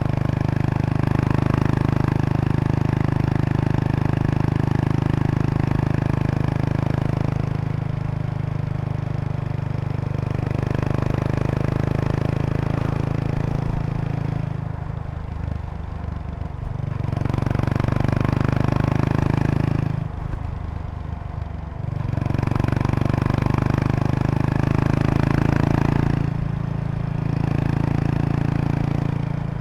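Exhaust of a 2003 Kawasaki Estrella RS's single-cylinder engine, fitted with a Yamato aftermarket muffler, heard while riding at an easy pace. It pulls steadily, easing off the throttle and dropping in level about halfway through and again a few seconds later, with a short dip near the end. A light buzzing rattle from a seat bag's stiffener plate resonating with the engine's vibration may run under it.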